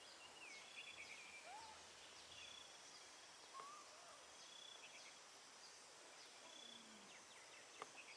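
Near silence: faint open-air ambience with distant birds calling, a short rising-and-falling chirp repeated every second or two and a few higher trills.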